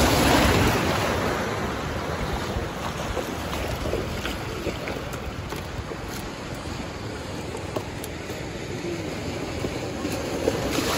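Sea surf washing onto the beach, with wind buffeting the microphone. The surf is loudest in the first second and swells again near the end.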